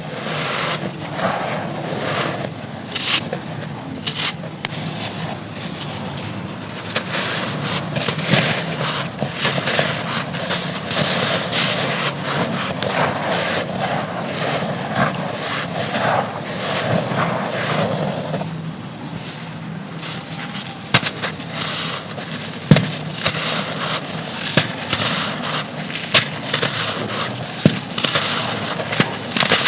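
Dry red dirt chunks being crumbled and crushed: a continuous run of crisp, crackling crunches, with a few sharper snaps in the second half.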